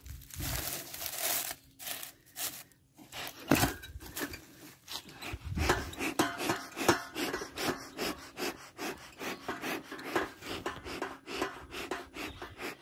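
Leaves being stuffed by hand into a beekeeper's smoker to revive its fire, giving irregular rustling and crunching with many short crackles.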